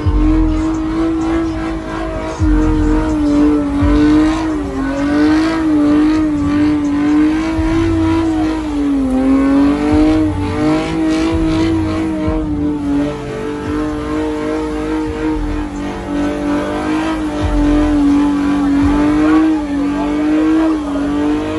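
Car engine held at high revs during a smoky burnout, its pitch staying high but wavering slightly up and down.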